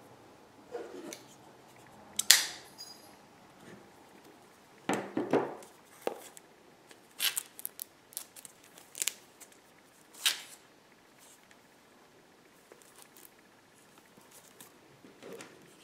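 A shrink-wrapped iPhone 7 cardboard box being handled and turned over: scattered sharp taps, clicks and crinkles of the box and its plastic film, the loudest a little over two seconds in, growing sparse and faint after about eleven seconds.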